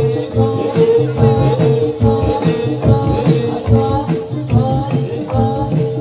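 Javanese jathilan gamelan music: regular drum strokes and short repeated melodic notes over a steady held tone, with jingling rattle-like percussion.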